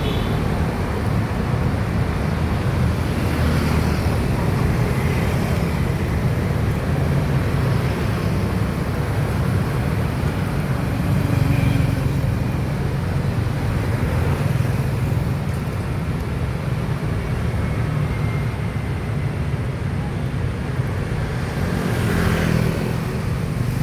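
Steady rumble of motorbike and road traffic.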